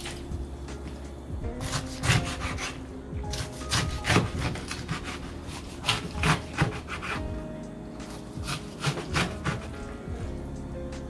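Kitchen knife chopping blanched young cabbage (eolgari baechu) on a cutting board: quick knife strikes through the leaves and onto the board, coming in several short runs. Faint background music runs underneath.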